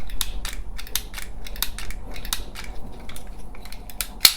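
Door lock mechanism from a 2008 Volvo V70, its plastic and metal parts clicking and snapping as they are worked by hand: a quick, irregular run of clicks, with one sharper, louder click near the end.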